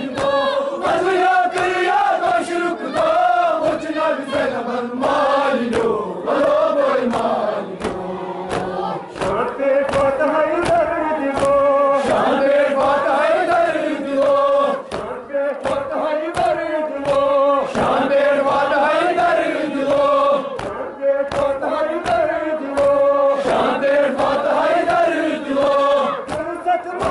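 A crowd of men chanting a Kashmiri noha, a Muharram lament, together in a wavering melody, with rhythmic hand slaps of chest-beating (matam) beating through it.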